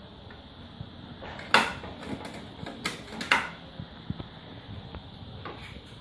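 A spirit level and wooden batten knocking against a brick wall as they are set in place: a few sharp knocks, the loudest about one and a half seconds in, two more about a second later, and a faint one near the end.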